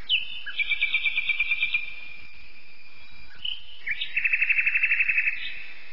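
Songbird singing: two quick trills of rapidly repeated high notes, about a second each, with short whistled slides between them, over a steady faint hiss.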